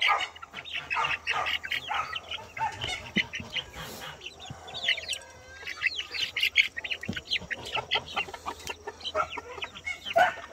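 A flock of chickens clucking, with many short calls overlapping, as live black soldier fly larvae are scattered among them for feeding.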